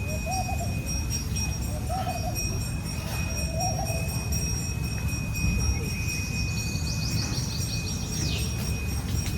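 Nature ambience: an owl hoots three times, evenly spaced, in the first four seconds over a steady low rumble. Two thin, unbroken high tones like insects singing run throughout, and a brief chirping trill comes about seven seconds in.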